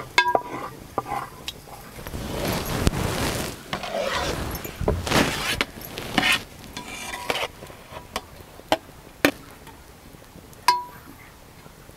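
Steel perforated ladle scraping and clinking in a large aluminium pot as cooked rice is tipped off a metal plate and spread over the chicken, layering a dum biryani; a rustling, scraping stretch in the middle, then several sharp clinks of the ladle on the pot, one ringing briefly near the end.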